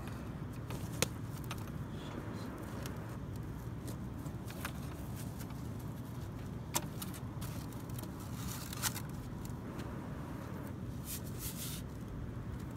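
A steady low rumble with a few sharp clicks and knocks, about one second in and twice more later, as a plastic milk crate and a catch pole are handled; a short rustle near the end.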